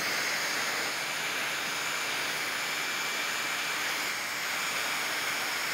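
Electric heat gun blowing hot air, a steady rushing with a faint high whine, heating stretched PPF tint film on a headlight lens so it tacks down.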